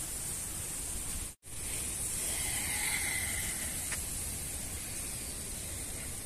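Steady outdoor hiss of background noise, cut off for an instant about a second and a half in.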